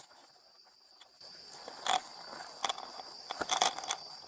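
Handling noises from a pocket search: a few short rustles and clicks as things are pulled from pockets and dropped on a chair cushion, the first about two seconds in and a cluster near the end. A steady high cricket chirr runs underneath.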